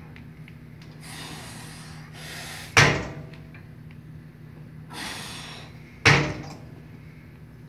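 Two loud metallic clanks with a short ringing decay, about three seconds apart: the weight plates of a Nautilus gym machine's stack banging down during a set. A hard, breathy exhale comes before each clank, over a steady low hum.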